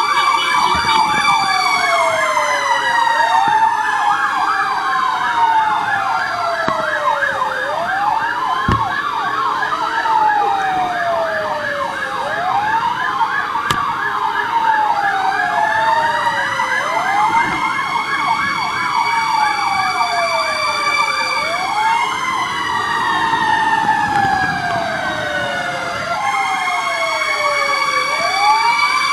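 Several fire-engine sirens sounding together. One wails, sweeping up quickly and sliding down slowly about every three seconds. Another warbles fast, over a higher tone that slowly rises and falls.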